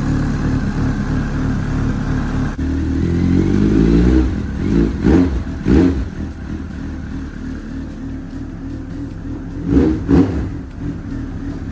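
Honda CB1300's replacement inline-four engine running on its first start-up. It idles steadily, is revved up and dropped back about three seconds in, then gets two pairs of short throttle blips.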